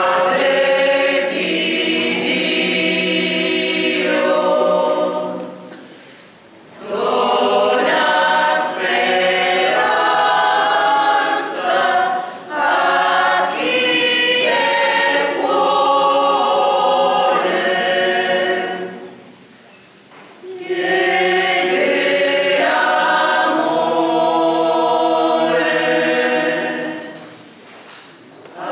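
Mixed choir of men and women singing a cappella in sustained phrases, with short breaks between phrases about six seconds in, about twenty seconds in, and just before the end.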